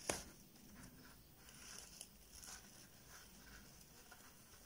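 Faint rustling and scratching of cord being drawn through stitches with a crochet hook, with one short click at the start.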